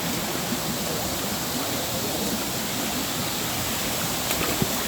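Waterfall and water flowing through a man-made canal, a steady, even rush of water.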